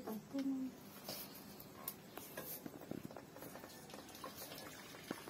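Faint scattered clicks and light taps of a metal cooking pot and steel plate being handled.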